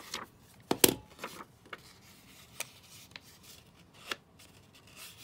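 Paper being handled and fitted into a handheld corner-rounder punch: a sharp double click a little under a second in, then a few faint taps and light paper rustling.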